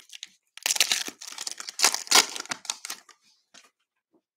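A Mosaic baseball cello pack's plastic wrapper being torn open, crinkling and tearing for about two and a half seconds starting about half a second in, with a few small card-handling ticks after.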